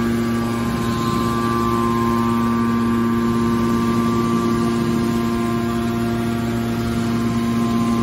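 Hydraulic power unit of a metal scrap baler running steadily: a constant electric-motor and pump hum with a steady whine, unchanging throughout.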